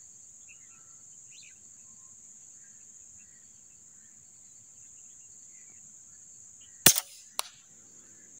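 A single sharp shot from a PCP air rifle, with a second, fainter crack about half a second later, over a steady high-pitched drone of crickets and faint bird chirps.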